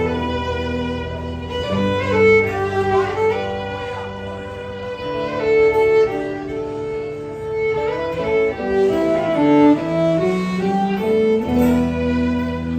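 Instrumental country music: a fiddle plays the melody over a band's sustained chords and low bass notes.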